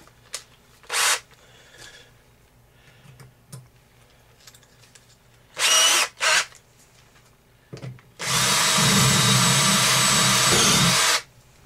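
Cordless drill boring out the hole in a cast brass pipe elbow with a 9/64 bit. Two short bursts come about six seconds in, then the drill runs steadily under load for about three seconds and stops.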